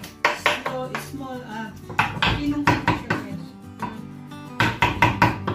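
Kitchen knife chopping raw mackerel finely on a wooden chopping board: quick runs of sharp knocks, about four a second, with short pauses between runs.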